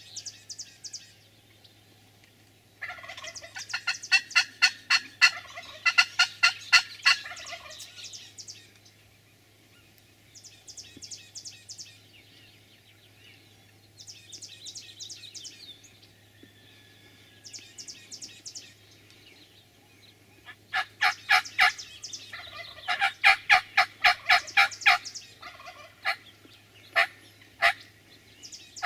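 Wild turkey gobblers gobbling: loud, rapid rattling gobbles from about three seconds in and again from about twenty seconds in, with shorter, fainter gobbles in between.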